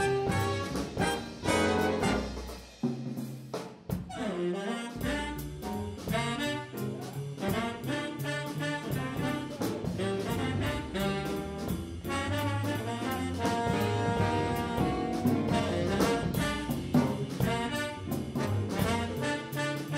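Big band jazz ensemble playing, the brass section to the fore with saxophones and a drum kit's cymbal strokes, and a short break about three to four seconds in before the full band carries on.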